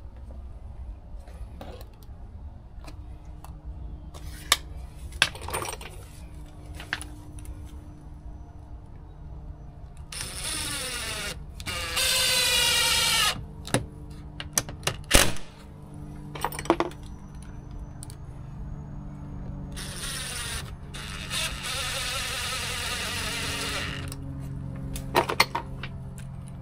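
Cordless drill driving mounting screws through a wall hydrant's flange into house siding. Two short runs of motor whine shifting in pitch come about ten seconds in, and a longer, steadier run about twenty seconds in. Scattered clicks and knocks fall between them, the sharpest about fifteen seconds in.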